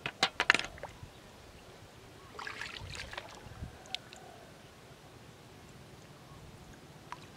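River snail shells clacking against a metal basin, a quick run of sharp clicks in the first half second as a handful is dropped in. About two seconds in comes a brief splash and slosh of shallow river water as a hand reaches in, and there is one more click near four seconds.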